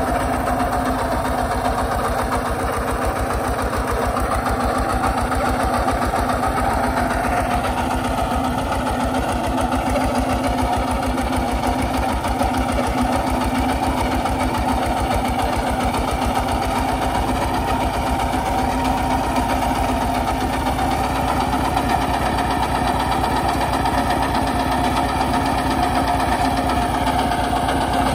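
Kubota RT140 walk-behind tractor's single-cylinder diesel engine running steadily with an even beat of firing strokes, under load pulling a plough through dry soil.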